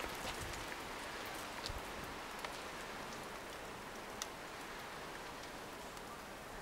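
Low, steady outdoor hiss with a few scattered faint ticks.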